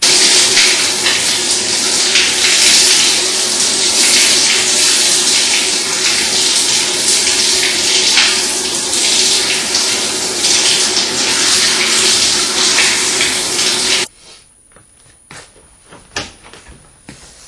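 Water running hard and steadily, as from a tap or shower, then cut off abruptly about fourteen seconds in. After that, a couple of light knocks.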